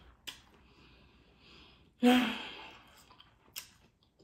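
A woman breathing in, then letting out a loud, heavy sigh about two seconds in. The sigh opens with a short voiced catch and trails off over about a second. A few small clicks come before and after it.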